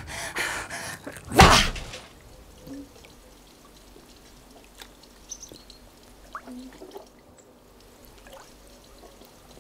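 A heavy splash of a body into a swimming pool about one and a half seconds in, then a low, muffled hush with a few faint drips.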